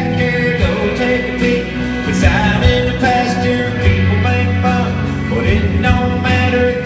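Live song: a man singing at the microphone while strumming an electric guitar, amplified through the hall's sound system.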